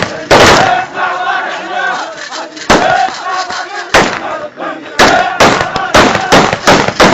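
A crowd of men chanting and shouting a hosa, the Iraqi tribal war chant. It is broken by loud sharp bangs: one about half a second in, single ones near three and four seconds, then a quick run of them in the last two seconds.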